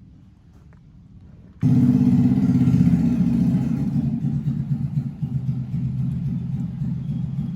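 A steady low engine rumble, like a motor vehicle running, cuts in suddenly about one and a half seconds in after near quiet.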